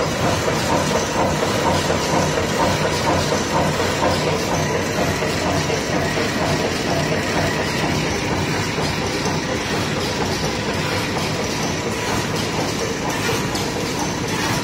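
A 12-roll wet wipe folding, stacking and packaging machine running: a steady, dense, rapid mechanical clatter of its moving parts.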